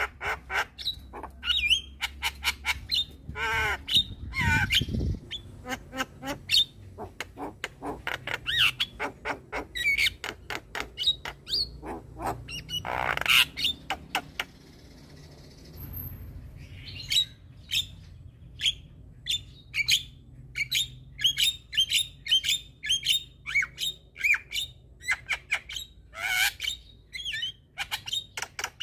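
Black-winged myna (jalak kebo) calling in a rapid series of sharp chattering notes and squawks. There is a harsh rasping burst about halfway through, then a short lull before the chatter resumes.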